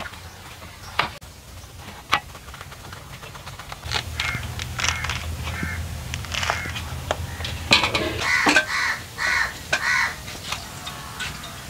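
A knife clicks against a steel plate and the thick pomelo rind is pulled and torn away by hand. Near the end a crow caws about four times in quick succession, about half a second apart.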